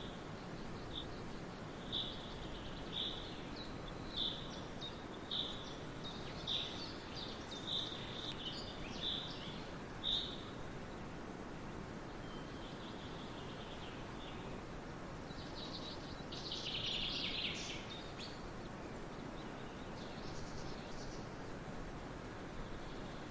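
Forest ambience: birds calling over a steady background hiss. One bird repeats a short high note about once a second for the first ten seconds while others call alongside, and a denser flurry of calls comes a little past the middle.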